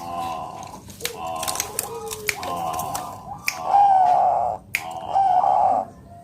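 Bangkok-strain zebra dove (perkutut) singing: a run of rolling, trilled coos with sharp clicking notes, several phrases in a row.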